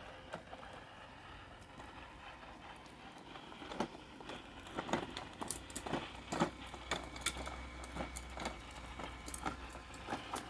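Parkside robotic lawn mower running with a faint low hum, with irregular clicks and ticks starting about four seconds in.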